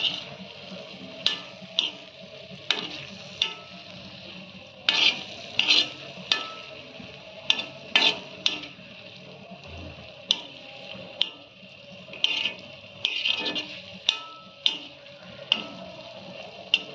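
Spatula scraping and knocking on a flat iron tawa while a thick halwa is stirred and mixed in ghee, with a faint sizzle underneath. Sharp knocks come irregularly, about one a second.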